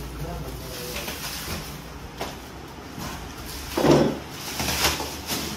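Cardboard and plastic sofa packaging being handled and torn open: irregular rustling and scraping, with a louder burst about four seconds in.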